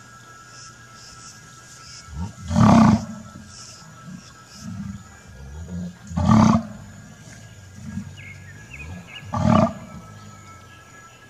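Three loud roar-like animal calls, each about half a second long and roughly three and a half seconds apart, over a faint steady high tone.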